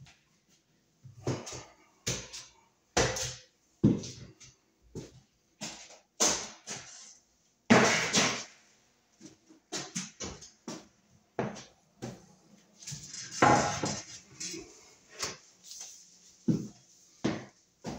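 A hand tool cutting and scraping at a hole in a wall to enlarge it for a Romex cable connector: a run of short, irregular rasping strokes and knocks, a few lasting about a second.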